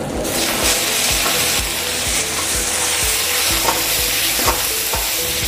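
Food frying loudly in hot oil in a black wok while a steel ladle stirs it, the sizzle jumping up sharply just after the start. The ladle scrapes against the pan a few times through the sizzle.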